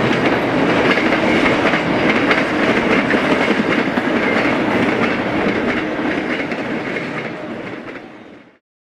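Tail end of a BNSF double-stack intermodal freight train rolling past, a steady rumble of container well cars with their wheels clacking on the rails. The sound fades over the last two seconds as the final car goes by, then cuts off abruptly.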